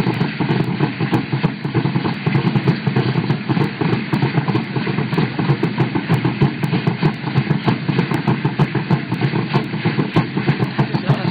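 Fast, steady drumming accompanying dancers: a dense run of rapid beats with no break.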